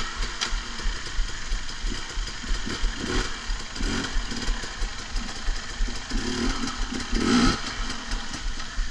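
Motorcycle engine running, revved up in short surges a few times over a low idle, with occasional knocks.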